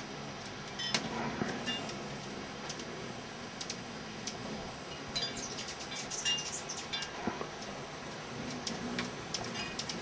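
A crowd of hummingbirds jostling for feeders: many short, high chips and squeaks overlapping, scattered irregularly throughout.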